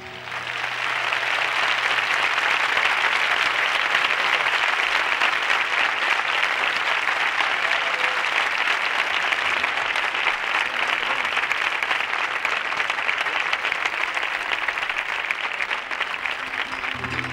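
Theatre audience applauding at length as soon as a flamenco song with guitar ends, swelling at once, then a steady dense clapping that thins a little near the end.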